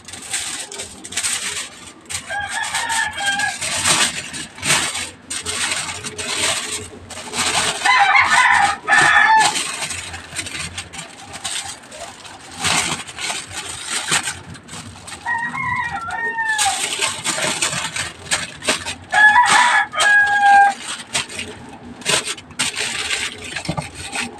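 Aluminium foil crinkling and rustling as it is folded and pressed around a fish, while a rooster crows four times, each crow lasting a second or two and louder than the foil.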